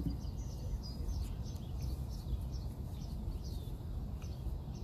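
A small bird chirps in a quick run of short, high, falling notes for about three seconds, over a steady low rumble.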